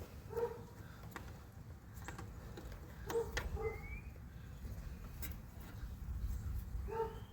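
A bird calling a few times in short chirps, one with a rising whistle, over light clicks.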